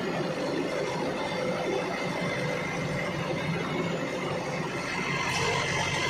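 Backhoe loader's diesel engine running steadily at work, a continuous heavy mechanical rumble with a faint steady whine over it.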